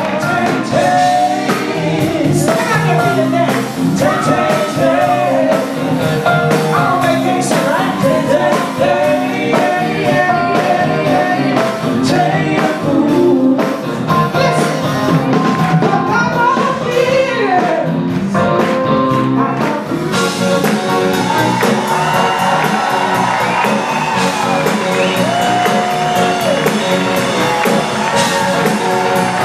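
Live soul-blues band playing loud, with electric guitars, drums and a singer.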